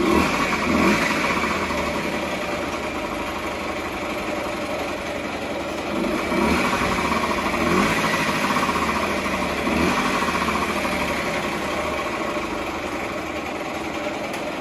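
Honda Dio AF27 scooter's 50cc two-stroke single-cylinder engine running after a rebuild, steady with a few short throttle blips, running fairly well.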